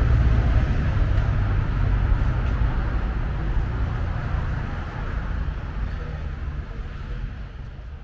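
City street traffic: a steady low rumble of road vehicles under a haze of street noise, gradually fading out.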